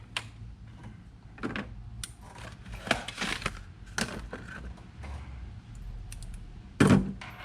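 Metal wrenches clinking and clattering as they are handled and sorted: scattered light clicks, and one loud clank near the end.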